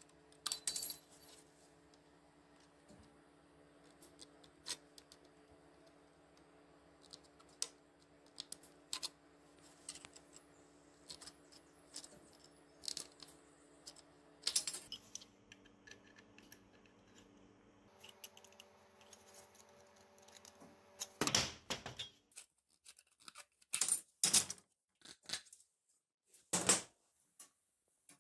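Aviation tin snips cutting a thin galvanized sheet-metal plate in short, crisp snips, spread out with pauses. In the last third come louder metallic clinks and rattles as the plate knocks against the steel weld-mesh cage.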